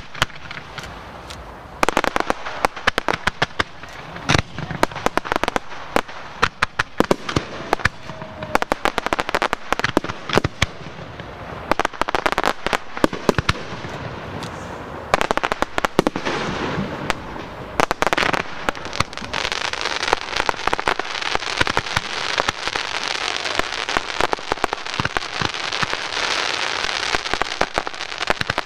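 Fireworks going off: a quick string of sharp bangs and pops from aerial shells and comets. After about eighteen seconds it gives way to a dense, continuous crackling.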